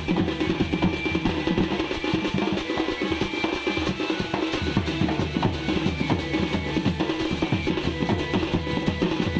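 Sambalpuri folk dance music: fast, dense drumming with a held melody line over it.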